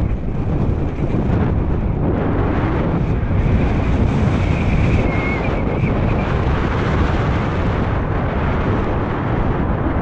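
Wind buffeting a helmet-mounted camera's microphone on a fast mountain-bike descent, a loud, steady rush, with the bike rolling over loose volcanic gravel.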